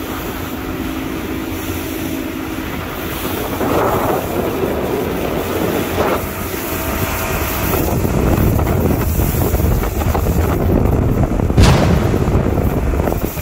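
Wind buffeting the microphone over the steady noise of a motorboat running across open water, with three brief louder bursts, the last near the end and loudest.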